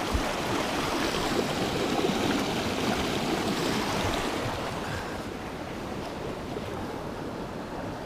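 A mountain river rushing, with hands splashing in the water for about the first five seconds as they are wetted before handling a trout. After that only the steady rush of the stream remains.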